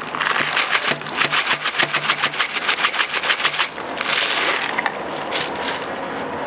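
Coarse ice cream salt poured from a cardboard box onto ice in a glass jar: a fast, even rattle of grains striking ice and glass for about three and a half seconds, then a shorter steady pour.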